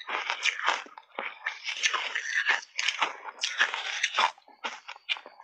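Close-up chewing of shaved ice coated in matcha and milk powder: a rapid, irregular run of crisp crunches that thins out near the end.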